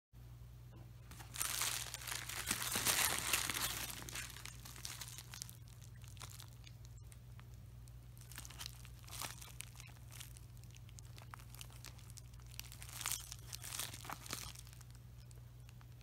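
Plastic packaging crinkling and rustling as it is handled: a bubble-lined mailer and a sealed plastic product bag. The loudest, longest rustle comes a couple of seconds in, with shorter crinkles around the middle and again near the end, over a steady low hum.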